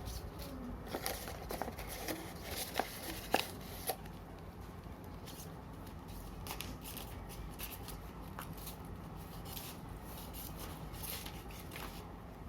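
A phone box and its packaging being handled and opened: a run of short clicks, taps and rustles, sharpest in the first few seconds, then lighter, over a faint steady hum.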